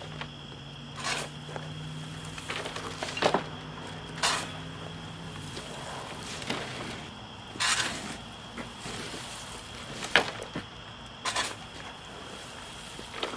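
Wood chips being shovelled by hand from a pile into a dump cart: short scraping, rustling strokes every one to three seconds. A faint steady hum underneath stops about five seconds in.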